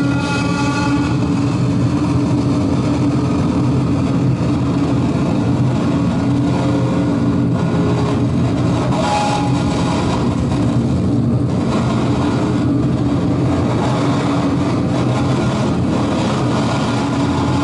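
Dark ambient noise drone from a modular synthesizer played live: a dense, steady wash of low noise with a held low tone underneath. Fainter higher tones fade out about a second in and come back briefly about halfway through.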